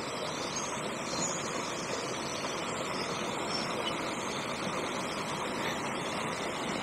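Steady rush of water spilling over a small canal weir.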